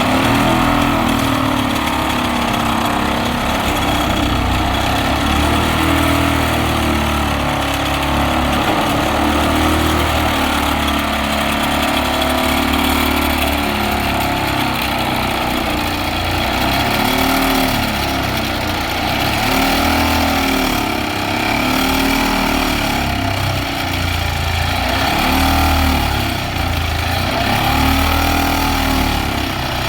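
Excavator-mounted hydraulic side grip vibratory pile driver running steadily, its pitched drone swelling and easing every few seconds.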